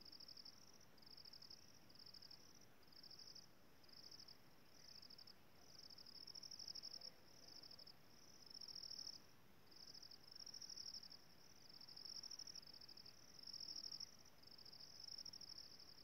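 An insect calling: a steady run of short, high, buzzy trills, a little more than one a second, the later ones longer and louder.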